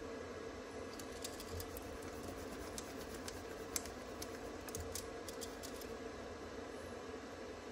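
Pen writing on paper: irregular short scratches and taps from about one second in to about five and a half seconds in, over a steady low room hum.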